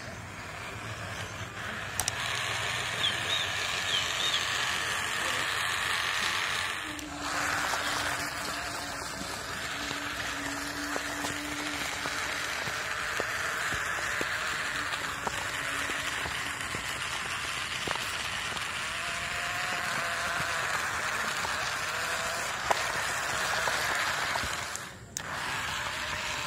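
Small battery-powered DC gear motor of a homemade cardboard toy tractor running steadily with a whirring hiss, breaking off briefly about seven seconds in and again near the end.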